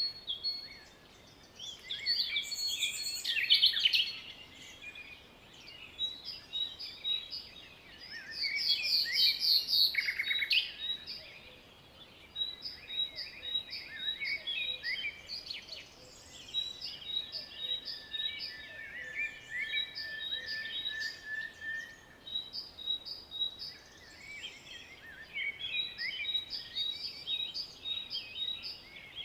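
Several songbirds singing and calling together: repeated short high chirps, a loud fast trill about eight to ten seconds in, and a long steady whistled note a little past the middle.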